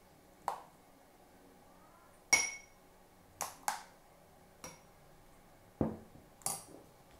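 Kitchenware clinking against a tall glass tumbler as mango shake is poured in from a mixer jar: about seven irregular sharp clinks and taps, the loudest about two seconds in with a short glassy ring, and a duller knock near the end.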